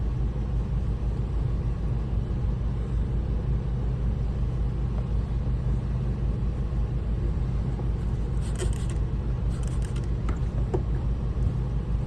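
Steady low machine hum from a running motor, with two brief rustles of handling near the end.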